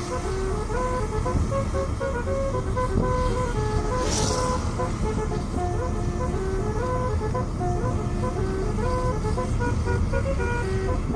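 Basuri telolet horn on a medium-size bus playing a tune of quick stepped notes over a steady low rumble. A short hiss comes about four seconds in.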